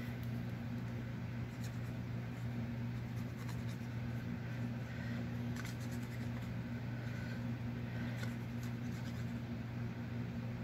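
Faint scratching of an applicator tip rubbing along the edges of a paper cut-out, inking them to tone down the bright white, over a steady low hum.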